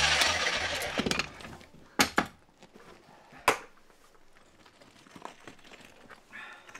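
Electric demolition hammer noise dying away within the first second or so. It is followed by a few sharp knocks, a close pair and then one more, as a demolition hammer is set down on rubble, with faint crunching on gravel between them.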